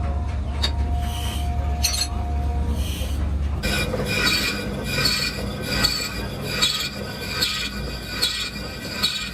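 Metalworking machinery running with a low hum, changing about three and a half seconds in to a high metallic squeal with a regular knock a little under once a second.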